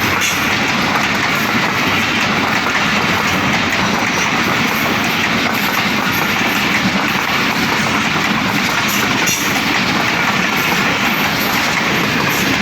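Express train passing at speed close by: a steady, loud running noise of wheels on rails that holds unbroken throughout.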